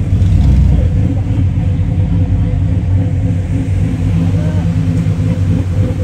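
A truck engine idling steadily with a low exhaust rumble.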